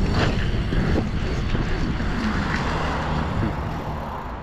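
Wind rushing over a GoPro's microphone as a mountain bike rolls along, with a couple of knocks from the bike in the first second. The rush eases off toward the end as the bike slows.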